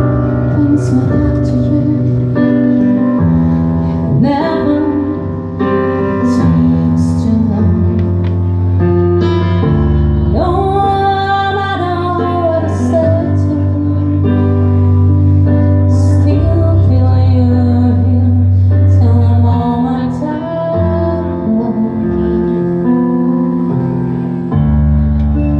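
A woman singing live with a band backing her: long held notes over sustained low bass notes, with her voice wavering in vibrato on a long note about ten seconds in.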